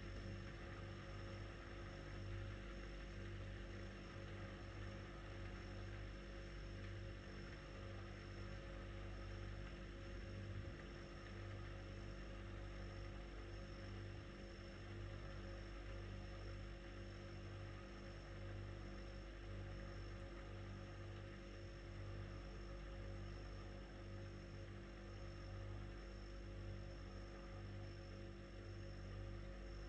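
A steady low hum with a faint rumble beneath it, unchanging throughout.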